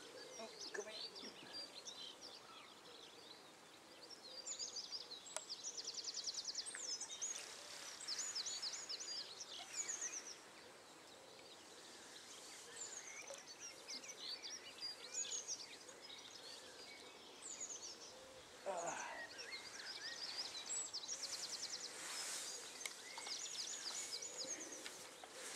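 Small songbirds singing faintly, a run of short whistled phrases and quick rattling trills, over a soft steady outdoor hiss.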